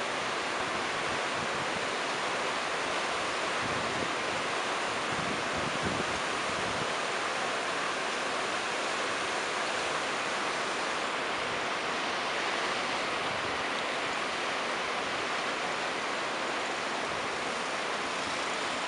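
Flooded river in spate: the steady, even rush of fast, turbulent brown water.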